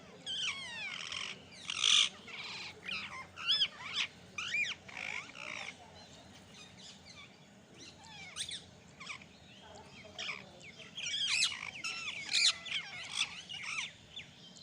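Several parrots screeching and squawking in rapid, overlapping calls, in two busy bouts with a quieter stretch between them.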